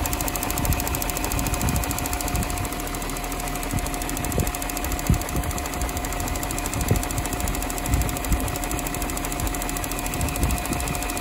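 BMW E38 740i's 4.4-litre V8 idling steadily as it warms up after a cold start, with a thin steady whine over the engine hum and occasional dull low thumps.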